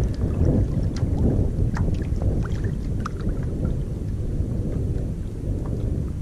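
Wind rumbling on the microphone, with small splashes and drips of water against a kayak scattered through.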